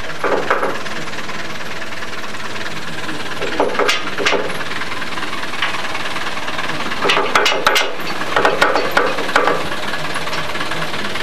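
Farm tractor's engine running while it tows a metal-framed trailer, with the trailer's frame and tow chain rattling and clanking in clusters a few seconds in and again from about seven seconds.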